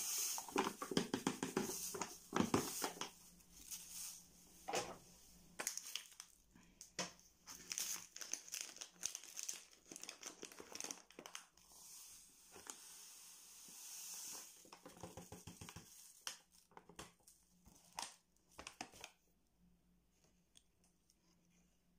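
Fine granulated sugar poured from paper bags into a stainless-steel pressure cooker: the paper bags crinkle and crackle, with stretches of hiss as the sugar runs into the pot. The sounds die away a few seconds before the end.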